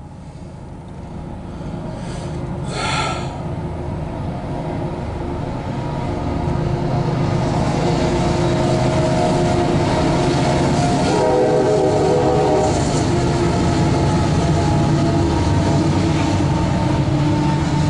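CSX diesel locomotives leading an intermodal freight train, their engines running under load. The sound grows steadily louder over the first several seconds as the train approaches, then holds steady as the locomotives pass.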